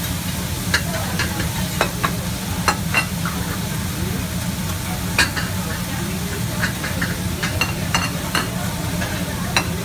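Food sizzling on a teppanyaki steel griddle, with the chef's metal spatula clacking and scraping against the plate in sharp, irregular knocks, over a steady low hum.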